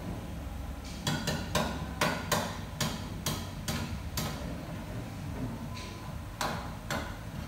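A run of sharp knocks, about three a second for three seconds, then two more near the end.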